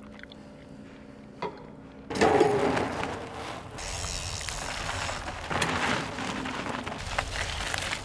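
A faint steady hum with a single light click, then, about two seconds in, a cross-country mountain bike rolling fast: a steady rush of tyre and wind noise that changes in character as the bike moves from road to dirt trail.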